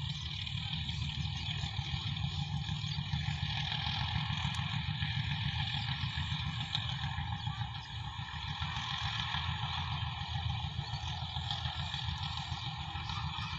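Distant diesel-hauled passenger train running steadily along the line, a continuous rumble with a higher hum over it, with wind buffeting the microphone.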